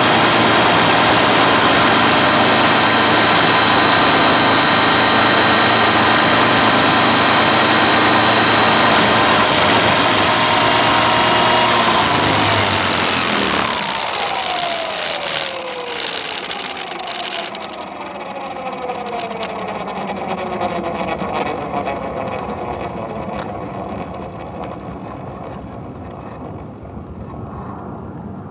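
Helicopter fitted with pontoons running steadily at speed, then powering down about twelve seconds in: its whine falls in pitch over the following ten seconds or so as the rotor winds down, and the sound fades.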